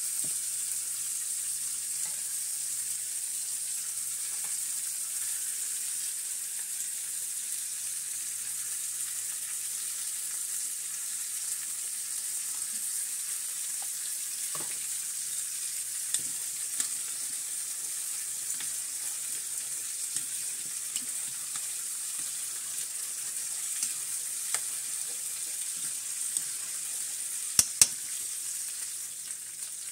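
Oxtails and chopped peppers and onions frying in a stainless steel pan, a steady sizzle. Scattered sharp clicks sound over it, the two loudest near the end.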